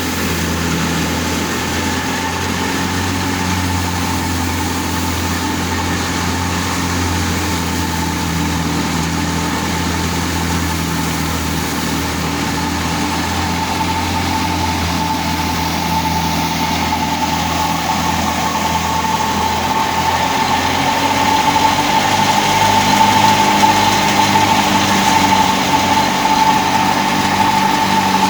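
Wheat harvesting machine running steadily: a low engine hum with a steady high whine that grows stronger in the second half, as the overall sound gets a little louder.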